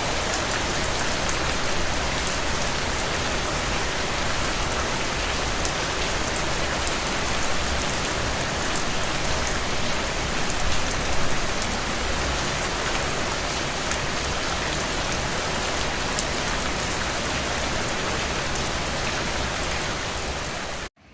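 Heavy rain pouring steadily in a dense hiss, with fine patter of drops. It cuts off abruptly at the very end.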